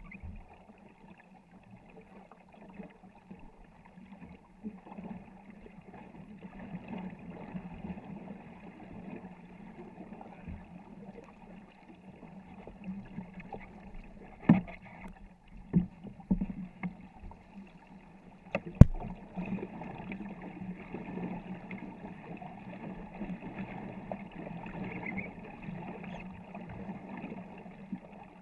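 Paddles stroking through the water of a 24-foot war canoe under way, with water washing along the hull. A few sharp knocks stand out between about 14 and 19 seconds in, the loudest near the end of that stretch.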